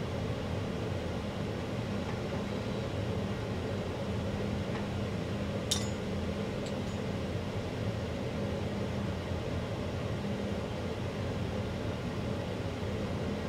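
Steady room hum with a low, even drone. A single sharp click comes about six seconds in, and a fainter tick follows a second later.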